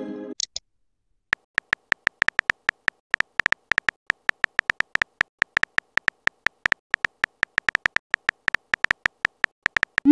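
Touchscreen keyboard tap clicks of a texting app, several a second at an irregular pace, as a message is typed out letter by letter. A short message-received tone dies away at the very start.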